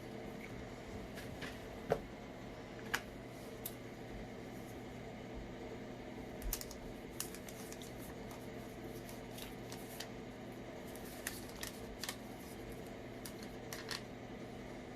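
Scattered light clicks and taps from a smartphone and its packaging being handled, over a steady electrical hum.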